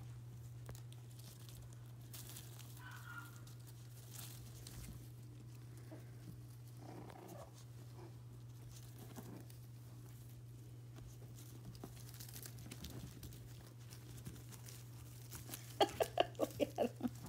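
Maltipoo puppies playing, with faint scuffling over a steady low hum; near the end a puppy lets out a quick string of about eight high yaps while wrestling.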